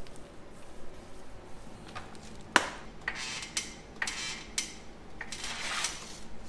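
A sharp clank about two and a half seconds in, then several short scraping rustles, the last as a sheet of cardboard is slid out across a concrete floor from under a tire.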